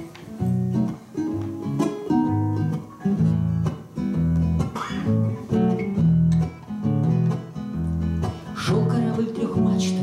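Acoustic guitar played solo in a steady rhythm of bass notes and strummed chords: the instrumental introduction to a song, before the singing starts.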